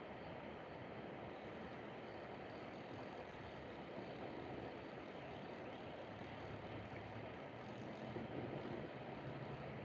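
Faint, steady outdoor background noise with no distinct events. A thin, very high hiss comes in about a second in, and a low hum rises near the end.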